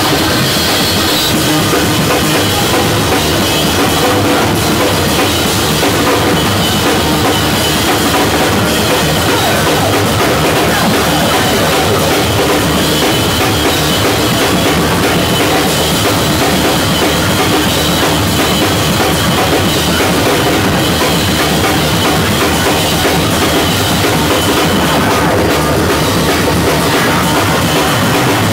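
Noise-rock duo playing live: a drum kit pounded in a fast, unbroken flurry with crashing cymbals, under a loud, distorted bass guitar. The sound is dense and steady, picked up by a camcorder's built-in microphone close to the kit.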